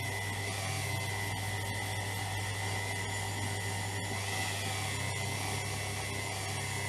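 Electric power tool running steadily, with a continuous motor hum and a thin high whine that hold even throughout.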